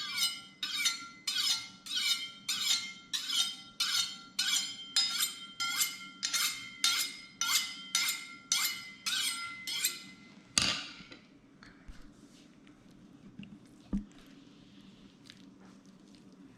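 A butcher knife being honed on a steel rod: an even run of ringing metal-on-metal strokes, about two a second, stopping about two-thirds of the way in with one louder clank. A single dull knock follows a few seconds later.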